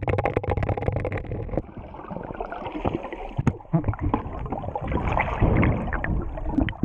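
Muffled underwater sound of swimming-pool water heard through a submerged GoPro camera: irregular gurgling, knocks and rushing as a swimmer moves past. It grows louder near the end, with bubbling as he blows air out through his nose.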